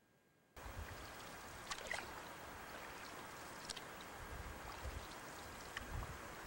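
Faint, steady wash of river water around a canoe, with a few light clicks and drips, starting after a brief dead silence.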